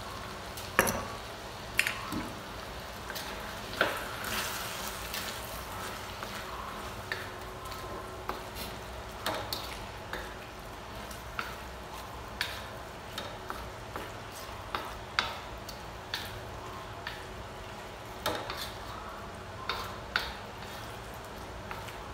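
Chicken and tomato sauce sizzling in a stainless steel wok while a wooden spatula stirs and turns it. Irregular sharp knocks and scrapes of the spatula against the wok sound over the steady frying.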